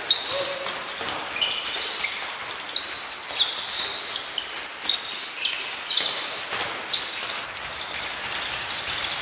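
Sports shoes squeaking on a hardwood sports-hall floor during quick jumps and landings. There are many short, high squeaks, irregular and overlapping, and now and then a knock of feet landing.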